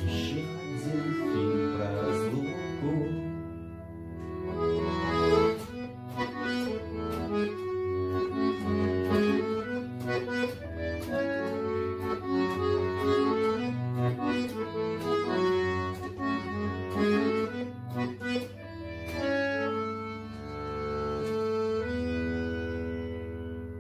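Garmon (Russian button accordion) playing a song melody over sustained bass and chords, ending on a long held chord.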